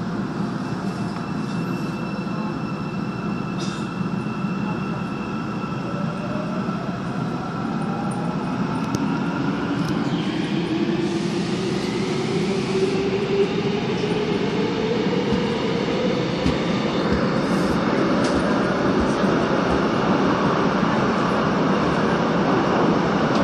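Busan Metro Line 3 train heard from inside the car, pulling away from a station into the tunnel: a motor whine rises steadily in pitch over several seconds as the train gathers speed, over the growing running noise of wheels on rail.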